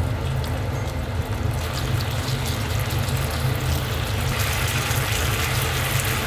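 Chicken thigh pieces in a gochujang marinade sizzling in a non-stick frying pan over medium heat, the sizzle growing louder about two seconds in and again past four seconds. A steady low hum runs underneath.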